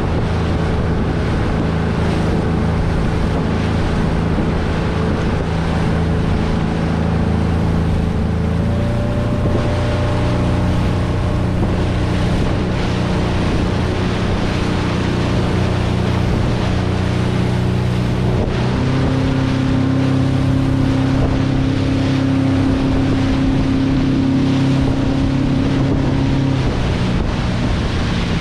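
Motorboat engine running steadily under way, its note shifting pitch a few times, with the hull's wake splashing and wind buffeting the microphone.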